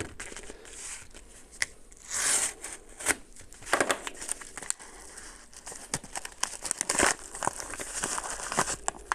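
Plastic parcel packaging being torn open and crinkled by hand, with irregular rustling and sharp crackles and a louder rip about two seconds in.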